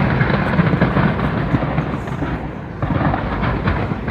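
Aerial fireworks display bursting: a dense run of bangs and crackles, easing briefly a little past halfway before the bursts pick up again.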